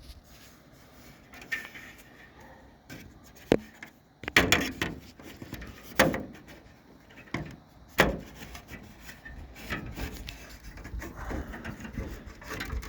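Hand-tool and parts-handling noises: scattered sharp knocks and clicks with rubbing and scraping in between, as a truck's hood latch cable is worked loose.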